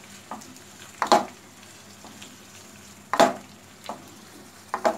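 Paneer cubes sizzling in hot oil in a non-stick frying pan, with a wooden spatula scraping and knocking against the pan three times, loudest about a second in and about three seconds in, as the cubes are scooped out.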